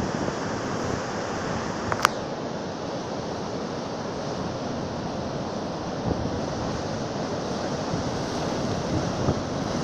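Rough storm-swell surf breaking and washing up the beach, a steady rushing of water. A single short click about two seconds in.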